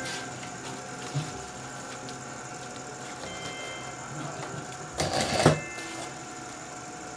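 Industrial sewing machine running a brief burst of stitching about five seconds in, the loudest sound here, while webbing tape is stitched onto a bag panel. Before it there are faint knocks of fabric being arranged under the presser foot.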